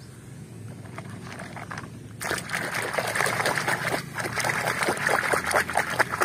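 Muddy water sloshing and splashing as a hand swishes and scrubs a small plastic toy under the surface to rinse it. The splashing starts about two seconds in and stays busy, with many small splats, to the end.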